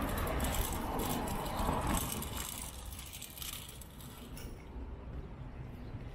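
Street traffic: a vehicle passing on the road, its rushing noise fading away over the first few seconds and leaving a quieter outdoor background.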